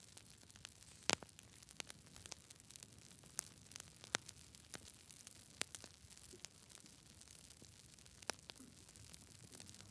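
Campfire crackling: irregular sharp pops and snaps from burning wood over a faint steady hiss, the loudest pops a little after a second in and near the end.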